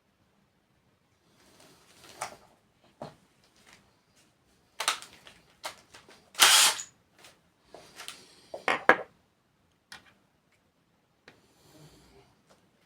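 Tools and clock parts being handled on a workbench: scattered clicks, knocks and short scrapes, the loudest a half-second scrape about six and a half seconds in.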